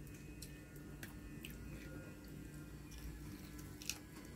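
A person eating quietly: soft chewing with a few small, sharp clicks scattered through, and a slightly louder bite near the end, over a steady low hum.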